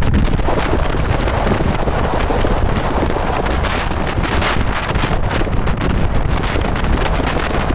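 Strong blizzard wind buffeting the microphone: a loud, steady rush with heavy low rumble and no letup.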